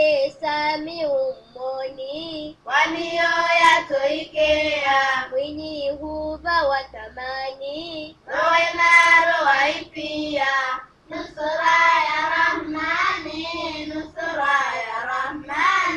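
A high solo voice singing an Islamic devotional song for Ramadan, almost unaccompanied. It sings in long phrases with wavering, drawn-out notes and short breaks between phrases.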